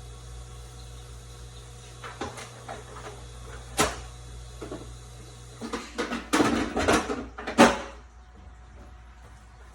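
Hard plastic parts knocking and clicking as they are handled and fitted together, several knocks in a cluster after about six seconds, the last one the loudest. A low steady hum stops a little past halfway.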